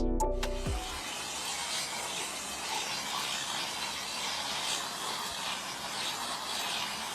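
Music ends about a second in, leaving a steady hiss.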